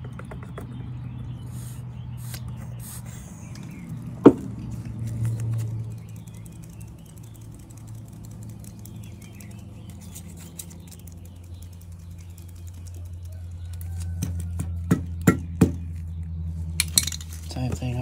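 Small metal clicks and clinks as vintage Zippo lighter parts, the insert and case, are handled and set down. There is one sharp click about four seconds in and a run of quick clicks near the end, over a steady low hum.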